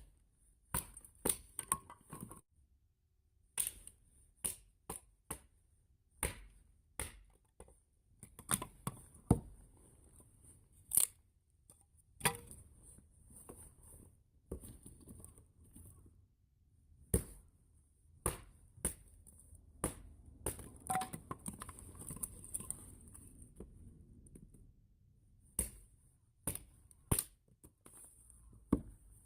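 Wood fire crackling: irregular sharp pops and snaps, some close together and some seconds apart, over a low soft rustle of burning.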